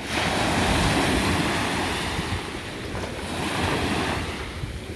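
Ocean surf breaking and washing onto a sandy beach, with wind buffeting the microphone.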